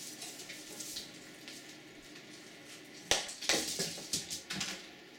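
Faint rustling and small clicks as an Italian greyhound noses at papers on a desk. About three seconds in comes a quick run of sharp knocks and clatters as she jumps down and her claws hit the floor.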